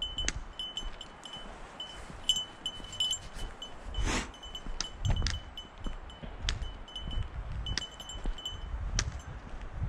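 A small bell on a guide dog's collar jingles on and off as the dog trots ahead. A few short knocks and some low wind rumble on the microphone run underneath, the loudest knock about four seconds in.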